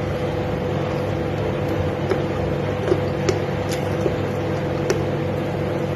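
Steady hum of a running motor with a faint constant tone, and a few small clicks of eating by hand over it.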